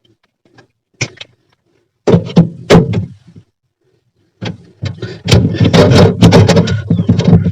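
Plastic refrigerator panels and parts knocked and rattled about while being handled and pulled apart: a few light clicks, a loud clatter about two seconds in, then continuous knocking and rattling from about halfway.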